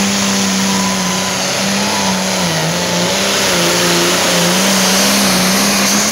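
Loud diesel engine of a Ford super stock pulling tractor running flat out under load as it pulls the sled, its note holding steady with brief dips in pitch about two and a half and four seconds in.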